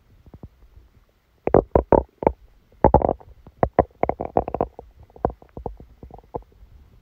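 Human stomach and bowel gurgling during a stomachache after a big meal. The first second or so is quiet, then comes a quick run of short gurgles and squelches for about five seconds, loudest in the first half, thinning out near the end.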